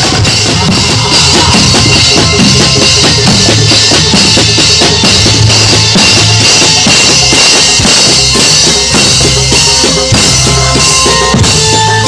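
Reog percussion ensemble playing loud and fast on drums, with a large cymbal struck again and again with a stick.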